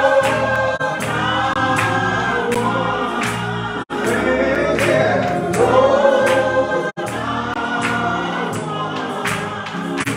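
Church choir singing a gospel song, a man leading into a microphone and the others joining on long held notes, over a steady beat. The sound cuts out for an instant twice.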